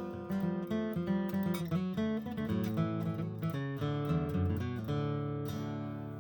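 Background music: acoustic guitar picked and strummed, ending on a held chord that fades out.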